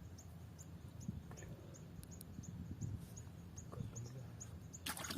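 An animal calling: a short high chirp repeated evenly about three times a second, over a low steady hum, with a brief loud noise near the end.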